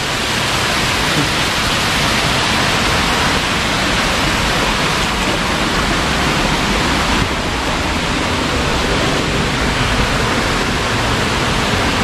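Steady rush of a small waterfall's falling water, softening slightly about seven seconds in.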